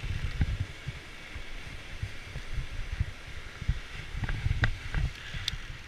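Wind buffeting the microphone in irregular low thumps and rumble, with a few faint clicks in the second half.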